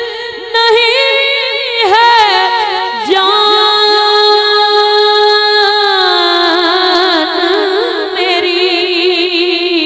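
A boy singing a naat unaccompanied into a microphone, in a wavering, ornamented line with a long held note in the middle.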